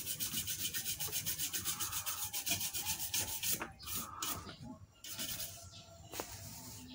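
A brush wet with thinner scrubbing the solder side of a CRT television's circuit board in rapid back-and-forth strokes, cleaning off solder residue. It scrubs for about three and a half seconds, stops briefly, then scrubs again for about a second.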